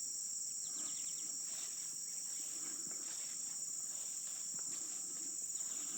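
Steady, high-pitched chorus of field insects.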